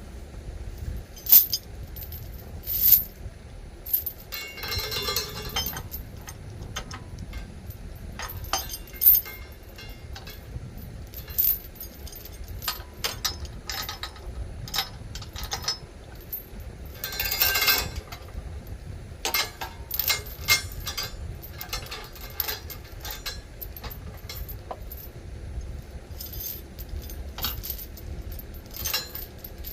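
Metal chain clinking and rattling in irregular bursts as it is handled and rigged for a lift.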